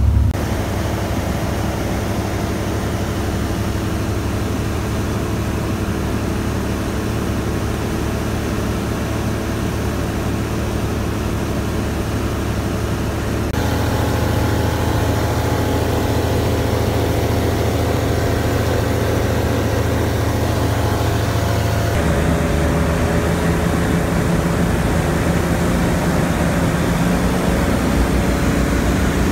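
Renault Kwid automotive four-stroke engine of a Mistral ultralight running steadily in flight, heard from inside the cockpit as a constant low drone with wind noise. The drone steps up in loudness about halfway through and its tone shifts again a few seconds later.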